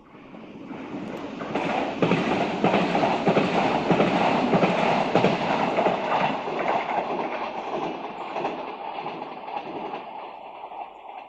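Renfe train passing by: its noise builds over about two seconds, stays loud with a rapid clatter of wheels on the track, then slowly fades as it moves away.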